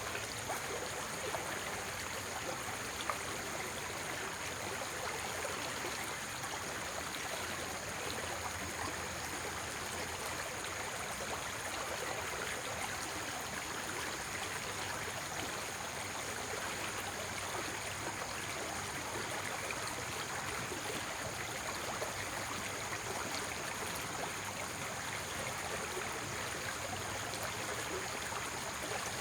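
Running water of a stream, a steady, even rush with no breaks or changes.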